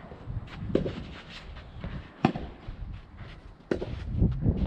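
Soft tennis rackets hitting the rubber ball in a rally: sharp pops about a second and a half apart, with a few fainter knocks between. Strong wind buffets the microphone with a steady low rumble.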